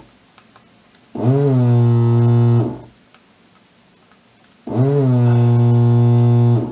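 JBC desoldering station's electric vacuum pump running in two bursts of about a second and a half each, a steady low hum that starts and stops abruptly. Each burst sucks molten solder out of a through-hole joint through the desoldering iron's nozzle.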